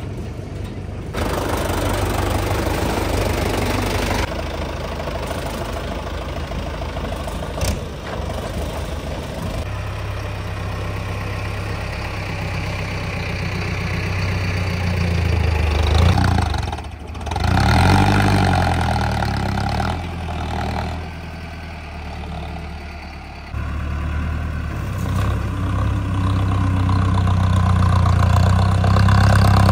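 Mahindra tractor diesel engines running, the sound changing abruptly a few times. About halfway through, the engine speed dips and then picks back up.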